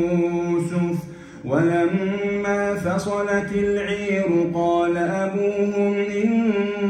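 A man reciting the Quran in a slow melodic chant, holding long drawn-out notes that glide gently in pitch. There is a brief pause about a second in, then the chanting resumes.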